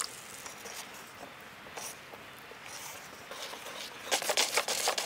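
Wire whisk stirring runny chocolate cake batter in a stainless steel bowl, soft at first, with a louder spell of quick scraping strokes against the bowl about four seconds in.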